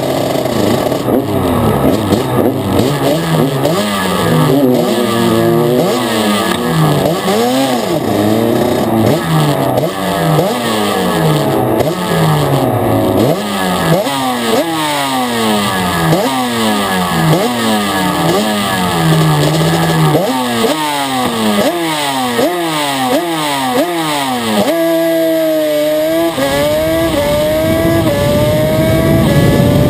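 Yamaha Banshee quad's two-stroke twin engine racing flat out, heard on board, its pitch climbing and dropping again and again as the rider works the throttle and gears. About 25 seconds in the note dips low, then rises in longer, slower climbs.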